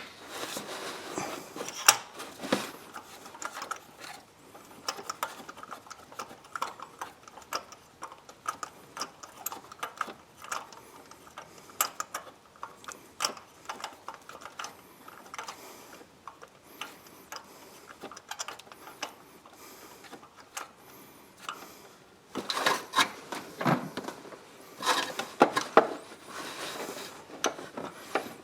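Ratchet and socket clicking in short, irregular runs as a spark plug is worked into the engine, with light taps and rattles of the tools; the clicks are faint through the middle and come thicker and louder near the end.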